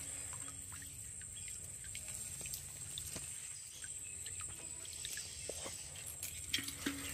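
Water dripping and trickling from a bamboo fish trap into a metal pot as the trap is shaken out, with small clicks and taps of the bamboo slats. A steady high-pitched whine runs underneath.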